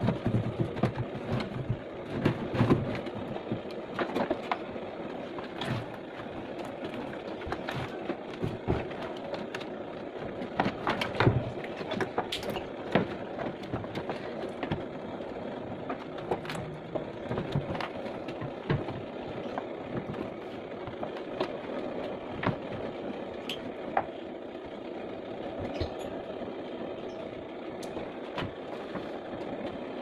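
Irregular clicks, taps and knocks of hands working on an opened washing machine: wires and hard plastic housing parts being handled and fitted back together, over steady background noise.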